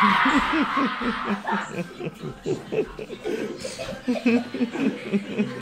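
People laughing in many short chuckling bursts, after a brief noisy outburst at the start.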